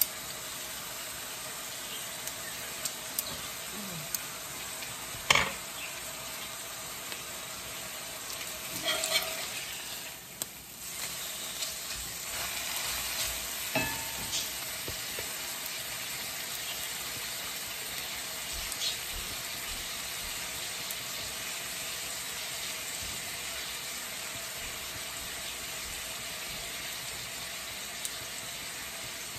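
Beef sizzling as it fries in a stainless steel skillet, a steady frying hiss. Metal utensils click and tap against the pan and plate now and then, the loudest a sharp clack about five seconds in. The sizzle dips briefly about ten seconds in.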